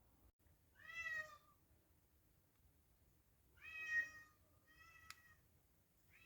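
A house cat meowing quietly: three short meows a few seconds apart, with a fourth beginning at the end.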